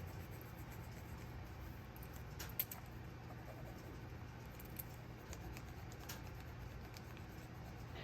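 Faint scratching and light ticking of an erasable gel pen's tip and rubber eraser working on thin Tomoe River paper, with one sharper click about two and a half seconds in.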